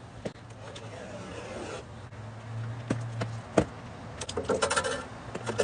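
Sealed metal ammunition spam can being opened, its thin sheet-metal tear strip scraping and crinkling as it is peeled off. There are a few sharp clicks, and a quick run of crackling ticks near the end.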